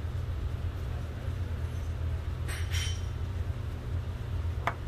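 Steady low hum with metal parts of a chiropractic table's drop rudder being handled. Brief light clinking of the metal handle pieces comes about two and a half seconds in, and a single sharp click near the end.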